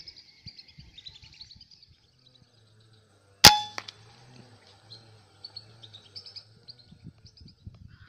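A single sharp air rifle shot about three and a half seconds in, with a short metallic ring after it, over the quiet high chirping of birds.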